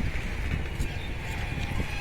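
Passenger train running along the track, a steady low rumble with faint clicks.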